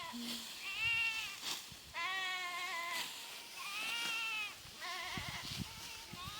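Livestock bleating: about four drawn-out bleats, each under a second long, with short gaps between them.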